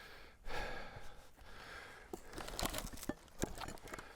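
Cedar splitting along the grain as a froe rives off a shake, with several sharp cracks and crackling as the wood fibres tear apart.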